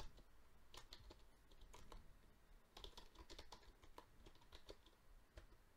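Faint typing on a computer keyboard: irregular key clicks as a command is typed in.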